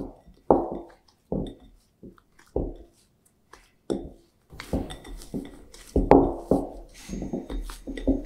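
Stiffening sourdough dough being mixed by hand in a glass bowl: a string of short presses and knocks of hand and dough against the glass, one or two a second.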